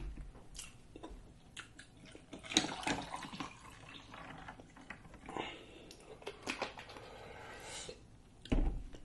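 The cap is unscrewed from a plastic bottle of lemonade with a few small clicks, then lemonade is poured into a glass of ice in short, faint pours.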